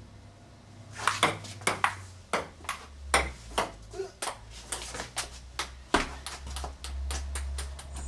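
Table tennis ball clicking back and forth off paddles and table in a rally, the hits coming faster near the end.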